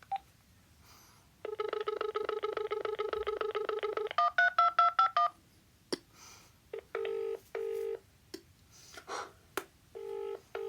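Uniden XDECT cordless phone dialling out: a fast run of beeps, then about eight separate touch-tone digit beeps. After that come two double-ring ringback tones, each two short buzzy bursts close together, about three seconds apart, while the call is ringing unanswered.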